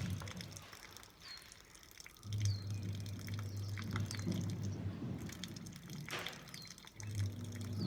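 Water from a neti pot running out of the nose and dripping and splashing into a basin in separate drops, with one fuller rush of water about six seconds in. A low steady hum comes and goes underneath.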